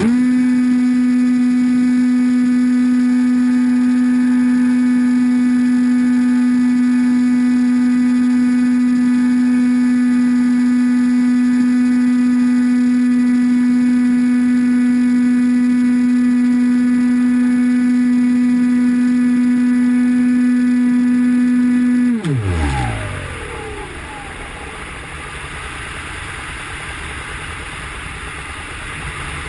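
Electric motor and propeller of an AXN Floater-Jet RC plane running at a steady high pitch from the onboard camera. About 22 seconds in the throttle is cut and the pitch drops away quickly, leaving only wind rushing over the plane as it glides.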